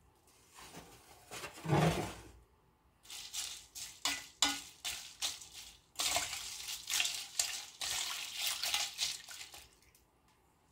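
Wire-mesh spider stirring shrimp through an ice-water bath in a stainless steel bowl: a splash about two seconds in, then water sloshing with repeated clinks and scrapes of ice and wire against the bowl.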